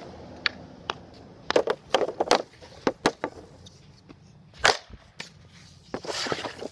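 Slap shots with a Bauer AG5NT composite hockey stick: sharp cracks and clacks as the blade strikes the puck and the plastic shooting pad. There are several in quick succession around two seconds in and a single loud one just before the five-second mark, then a longer scraping sound near the end.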